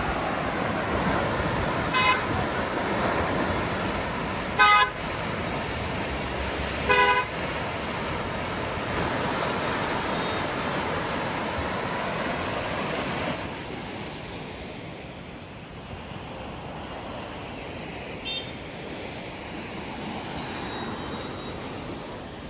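Swollen floodwater rushing and churning around concrete bridge piers, a steady hiss that drops to a quieter wash about halfway through. Vehicle horns honk briefly three times in the first seven seconds, and once more faintly later on.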